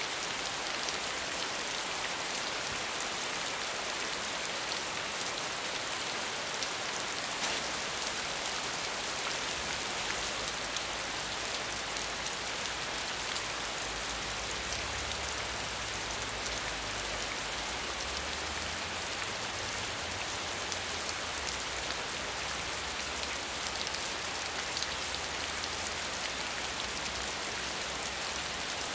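Steady medium rainfall: an even hiss of rain with many fine ticks of individual drops striking a surface.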